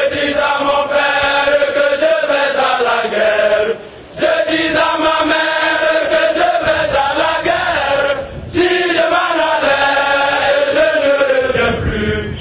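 Large group of military recruits chanting in unison, many men's voices, in three long phrases of about four seconds each with short breaks between them.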